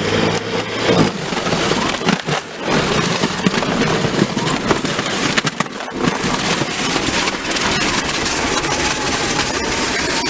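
Low-voltage, high-current electric snow blower running under heavy load, chewing through crusted icy snow, with many sharp clicks and knocks over a steady noise.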